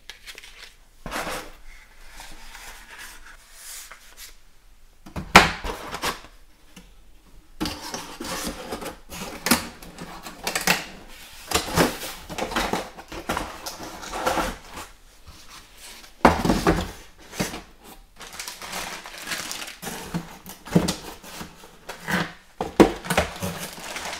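Cardboard box parts and a clear plastic pen case being handled and put away: irregular knocks, scrapes and rustles, with a sharp knock about five seconds in and a few more later.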